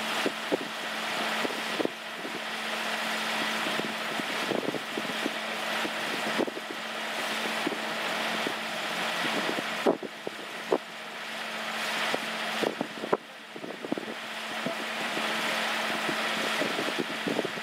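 The engine of a distant dredging crane barge humming steadily, under a rushing noise that builds and drops off every few seconds, with scattered sharp clicks.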